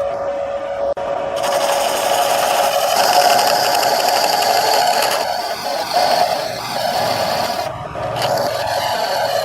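Wood lathe running while a turning tool cuts the spinning wood, a steady hum with a rasping scrape. The sound changes abruptly about a second in and again near the end.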